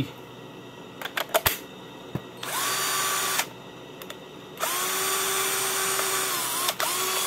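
Small Makita cordless drill run in three short trigger bursts, about a second, two seconds and a third starting near the end, each spinning up quickly to a steady whine, after a few sharp clicks. It is running off a heavy-duty battery through a home-made battery adapter.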